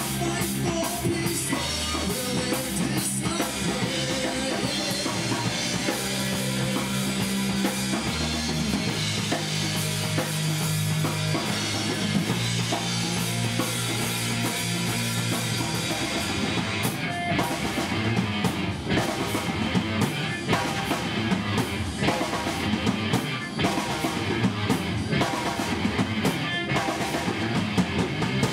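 Live heavy rock band playing: distorted electric guitar and bass riffing over a drum kit. The drumming gets busier about halfway through.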